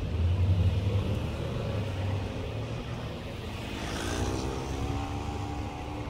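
City road traffic: a low car engine and tyre rumble, loudest in the first second, then about four seconds in a rising engine note as a vehicle accelerates.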